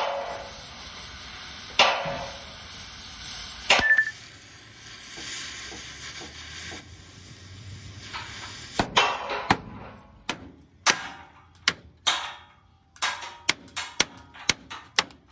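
Gas cutting torch hissing against the steel chassis rail of an Isuzu truck, with three sharp clanks in the first few seconds. From about nine seconds in, a hand hammer strikes the torch-heated rail over a dozen times in an irregular run of sharp metallic blows.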